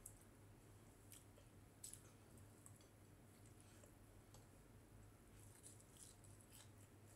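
Near silence: faint eating sounds, soft chewing and a few small clicks as breaded chicken strips are pulled apart by hand, over a low steady hum.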